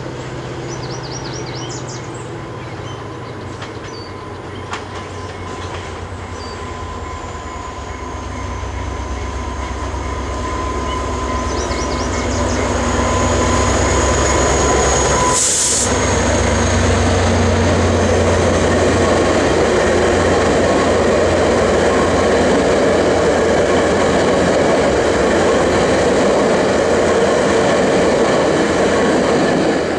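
VIA Rail passenger train, an EMD F40PH-3 diesel locomotive hauling seven stainless-steel Budd cars, approaching and passing: the locomotive's diesel drone grows steadily louder over the first dozen seconds, with a thin high squeal from the wheels. A short sharp burst of noise comes about halfway through as the locomotive goes by, then the cars' wheels on the rails make a loud steady rush.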